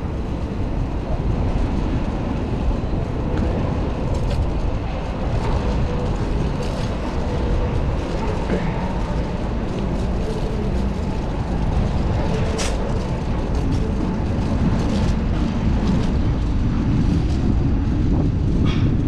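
Wind buffeting the microphone while riding a bicycle into a headwind: a steady low rumble, with a few faint clicks.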